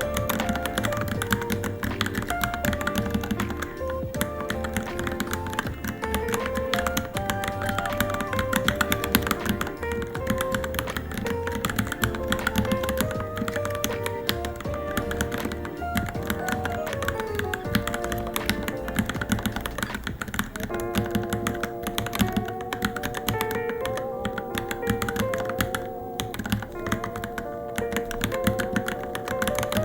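Fast, continuous typing on a Varmilo Minilo mechanical keyboard, many keystroke clicks a second, with background music playing over it.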